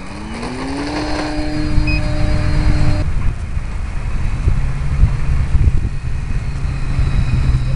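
Electric motor and propeller of a Flyzone Cessna Skylane RC plane spooling up in a rising whine, then holding steady. It cuts off suddenly about three seconds in. After that a lower steady hum runs over wind rumble on the microphone.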